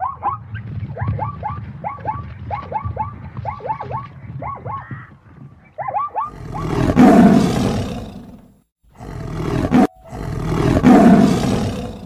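Plains zebras calling: a rapid series of short, yelping barks for about six seconds. Then come two long, loud tiger roars, each about two seconds long, with a short break between them.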